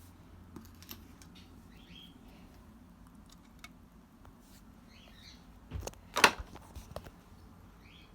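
Faint short chirps, three or four times, among scattered small clicks and knocks, with one loud sharp knock about six seconds in.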